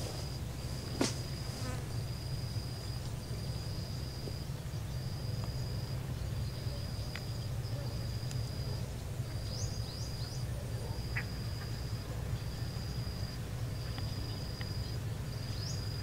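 An insect calling with a high, even buzzing trill, repeated about once a second with short gaps between calls, over a low steady hum. A single click comes about a second in.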